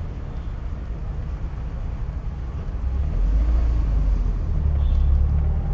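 A small car's engine and road rumble heard from inside the cabin as it drives slowly. About halfway through it grows louder, with the engine note rising slightly as the car picks up speed.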